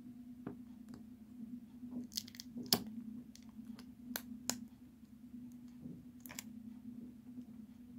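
Clear adhesive tape pulled from a desk tape dispenser, torn off and crinkled as it is wrapped by hand: a few sharp crackles and clicks, the loudest a little under three seconds in. A steady low hum lies underneath.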